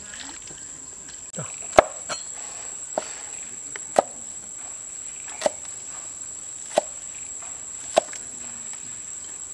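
Cleaver chopping spring onions on a wooden cutting board: about seven single sharp strikes spaced a second or so apart, the first the loudest. A steady high insect drone runs behind it.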